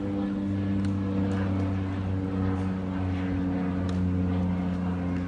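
A motor running steadily with a low hum. Two faint sharp taps, about a second in and about four seconds in.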